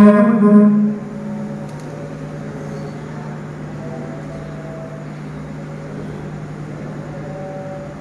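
An imam's voice, amplified over the mosque's loudspeakers, chants a short phrase in the first second: the takbir called as the congregation goes down into the bow. A steady low hum then continues, with a faint murmured voice over it.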